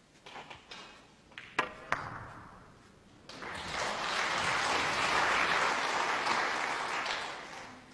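Two sharp clicks of snooker balls striking, about a third of a second apart, then audience applause that starts about three seconds in, runs for about four seconds and fades near the end.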